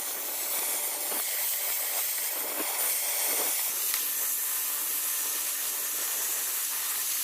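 A steady hiss from metal cutting or welding, with a few faint clicks.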